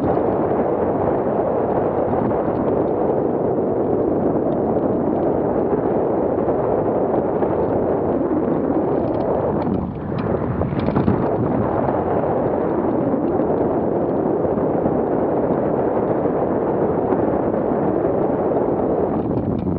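Wind rushing over the microphone of a camera mounted on a hang glider in flight: a loud, steady rush of airflow noise that dips briefly about halfway through.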